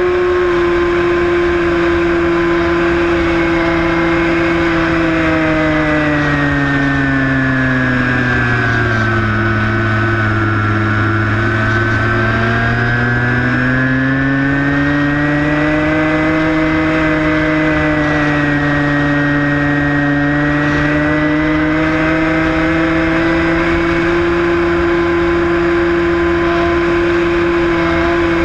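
Electric motor and propeller of a Skywalker 1680 RC plane running, heard from on board over a rush of wind. The motor slows, its pitch dropping from about eight seconds in, then speeds back up to its earlier pitch by about sixteen seconds.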